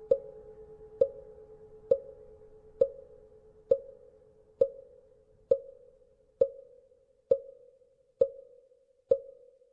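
Buddhist wooden fish (mõ) struck at a steady, even pace, a little faster than one knock a second. Each knock is hollow and woody with a short ringing pitch. Under the first knocks a temple bell's lingering hum fades and dies away about halfway through.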